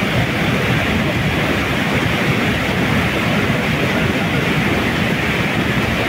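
Fast white-water river rushing steadily and loudly, an unbroken wash of churning rapids.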